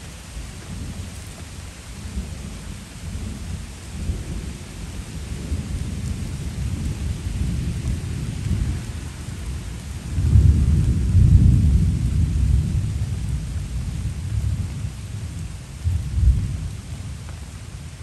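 Steady rain with a low rolling rumble of thunder that swells about ten seconds in, then flares briefly again near the end.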